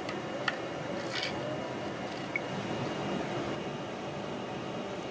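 Skewered mutton sekuwa sizzling steadily over a charcoal grill, with a few sharp crackles from the embers in the first half.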